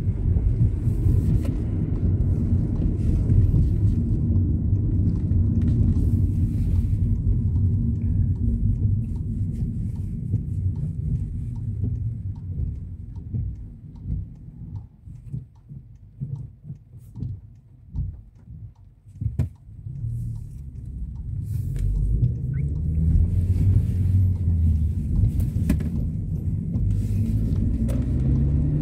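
Low rumble of a car's tyres and engine heard from inside the cabin while driving on wet roads. Around the middle it drops to a quieter, uneven idle for several seconds while the car waits at a red light, then builds up again as the car pulls away.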